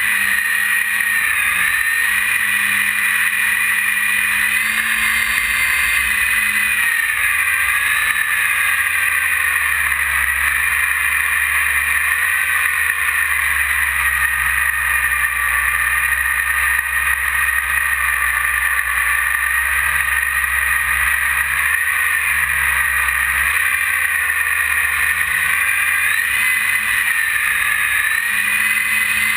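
E-flite 480 1020 kV brushless outrunner motor and propeller whining in flight, heard from the onboard camera, the pitch wandering up and down with throttle, over a low rush of wind on the microphone.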